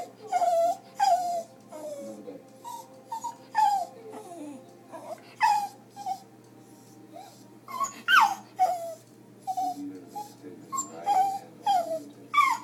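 A dog whining and yelping over and over: short high cries that each slide down in pitch, coming irregularly about once a second. He is whining in protest at a television programme.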